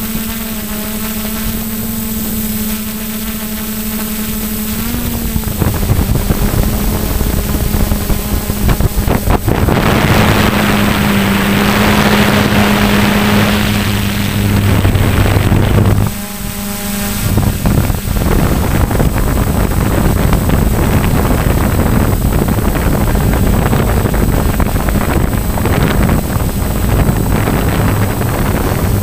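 Onboard sound of a radio-controlled model airplane in flight: the motor and propeller drone at a steady pitch that shifts a few times. Heavy wind rushes over the microphone and swells strongly around the middle.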